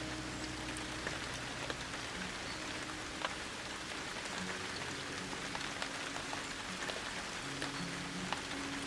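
Light rain shower falling, a steady hiss of rain with many scattered sharp drop ticks.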